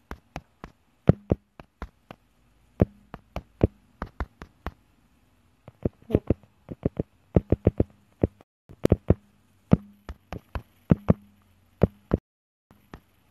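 Irregular sharp taps and clicks close to the microphone, a few a second in uneven clusters with short pauses between them.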